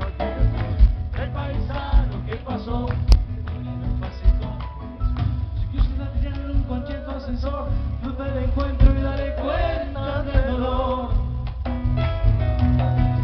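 Live band music: acoustic guitar with a drum kit and amplified instruments, played through the hall's sound system with steady drum hits.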